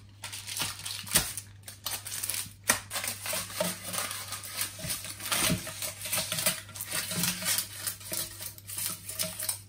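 Baking paper rustling and crinkling as it is fitted into a metal springform cake tin, with irregular light clicks and knocks of the tin being handled and assembled.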